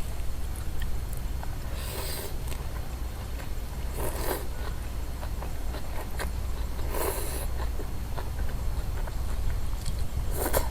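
A person eating close to the microphone: biting and chewing, with four louder, short noisy bursts a few seconds apart.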